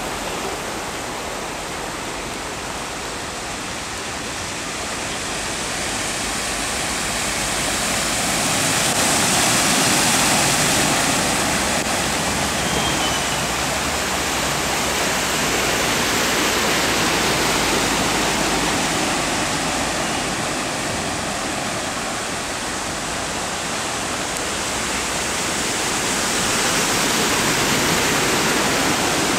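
Cars driving through deep flood water on a street, tyres pushing through it with a steady rushing splash. It swells louder about a third of the way in and again near the end.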